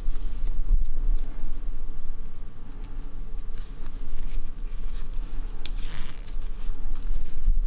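Faint rustling and light ticks of a crochet hook pulling yarn through half double crochet stitches, over a steady low hum.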